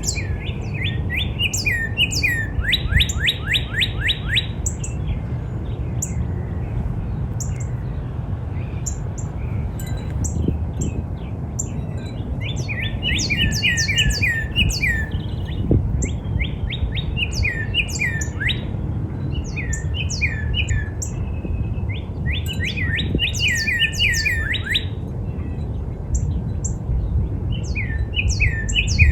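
Northern cardinal singing phrases of repeated down-slurred whistles every few seconds, with a fast run of steeply falling notes about three seconds in. Higher, thinner notes from other birds sound alongside over a steady low rumble.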